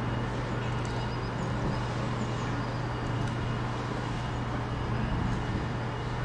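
Steady low rumble of distant vehicles with a constant low hum, and a few faint high chirps.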